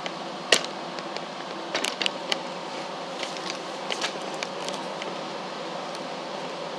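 Several sharp clicks and light taps, one about half a second in, a quick cluster around two seconds and a few near four seconds, from a tape measure and a board being handled while measuring. A steady mechanical hum runs underneath.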